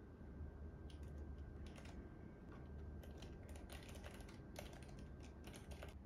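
Keychron K3 low-profile mechanical keyboard being typed on: faint, irregular key clicks, starting about a second in.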